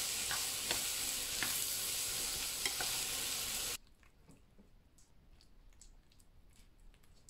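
Diced vegetables sizzling in a hot frying pan as they are stirred with a plastic spatula, with a few scrapes of the spatula. About four seconds in, the sizzle cuts off and only faint soft scraping remains as a silicone spatula smooths the quiche filling into its crust.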